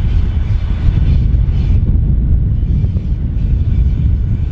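SU42 diesel locomotive running as it pulls a passenger train toward the listener, a steady low rumble.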